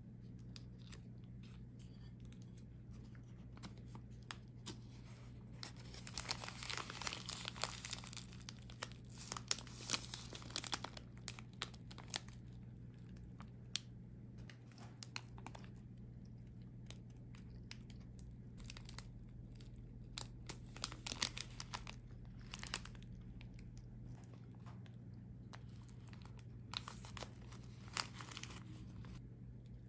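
Paper snack sleeve crinkling and the crisp breading of a fried ground-meat cutlet crackling as it is handled and torn apart, in several bursts of crackle over a steady low hum.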